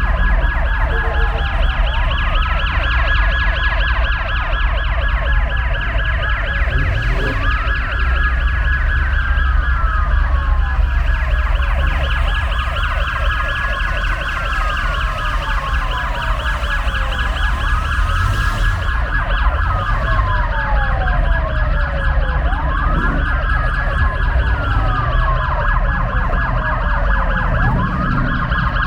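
Several police sirens sounding together: overlapping wails sweep down and up in pitch every couple of seconds over a fast warbling tone, with a steady low engine rumble beneath.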